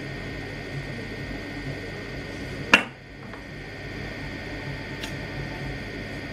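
A steady hum, with one sharp click about three seconds in and a fainter click near five seconds.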